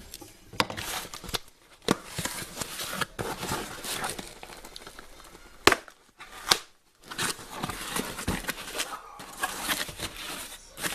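Brown packing paper crumpling and crinkling as a delivered package is unpacked by hand, with a few sharp knocks, the loudest about halfway through.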